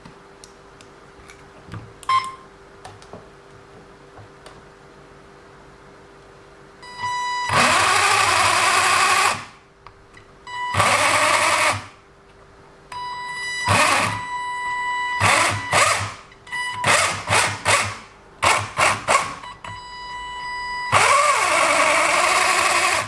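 WLToys 144001 RC car's electric motor and drivetrain, with a new metal centre driveshaft, run up in bursts of throttle: two longer runs, then a string of quick blips and a last long run, each a high whine over a harsh grinding. The grinding is what the owner felt was not correct and suspects is something rubbing in the drivetrain.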